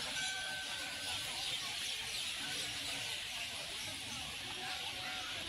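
Steady crowd ambience: a hiss-like wash of noise with faint, indistinct distant voices.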